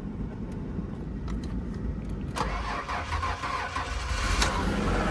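A car engine cranking, then catching about two and a half seconds in and running. It is a cold start of a car that had been sitting.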